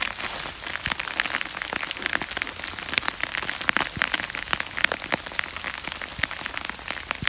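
Heavy rain, dense drops hitting a plastic rain cover close to the microphone, an irregular crackle over a steady hiss.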